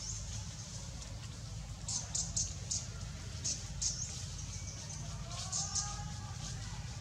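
Outdoor ambience of short, very high-pitched chirps in small quick clusters over a steady low rumble, with a faint wavering pitched call about five and a half seconds in.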